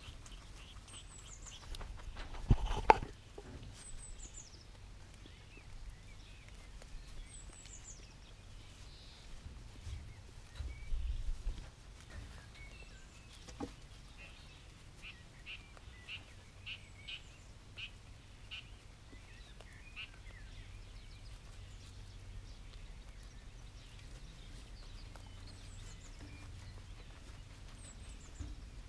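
Outdoor ambience with small birds chirping in short, high, falling notes now and then. A single loud knock comes about two and a half seconds in, and a quick run of soft clicks sounds around the middle.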